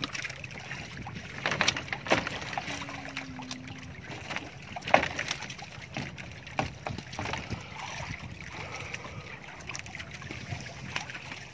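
Water sloshing, with scattered knocks and clatter, the sharpest about five seconds in.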